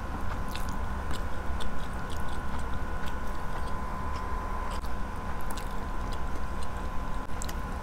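Close-miked chewing and small wet clicks of food being handled by hand, as grilled chicken and rice are eaten. Underneath is a steady low hum with a thin, steady high tone.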